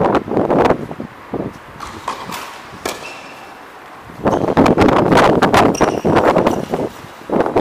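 Tennis rally: sharp hits of the ball on racket strings a few times. For the last few seconds, wind buffets the camera microphone over the hits.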